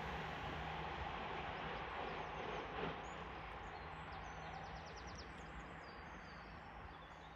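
A passing train's rumble slowly fading away as it recedes, with a faint steady low hum under it. Small birds chirp over it from about the middle onward.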